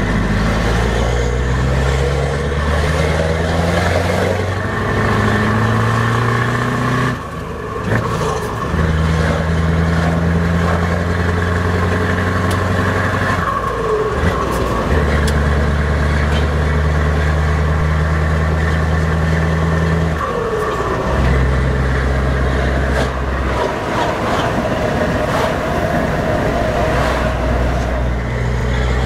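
Scania 164L 580's V8 diesel with an open straight-through exhaust, heard from inside the cab while the truck drives. The revs climb over the first several seconds, then the engine holds steady notes, and the note drops or changes abruptly several times.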